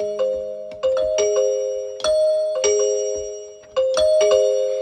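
Harp playing a slow repeating figure of a few notes, each plucked and left to ring and fade.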